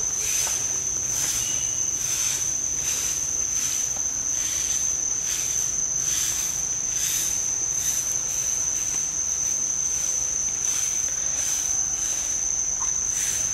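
Tropical forest insect chorus: a steady high-pitched whine with a rasping pulse that repeats roughly once or twice a second.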